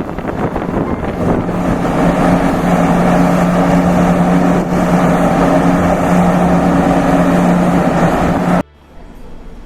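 A ship's engine drone, a steady low hum under rushing noise with wind buffeting the microphone, cutting off suddenly near the end.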